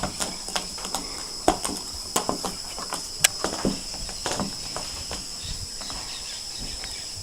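A steady high-pitched insect drone, cricket-like, with irregular light clicks and taps scattered over it, most of them in the first few seconds.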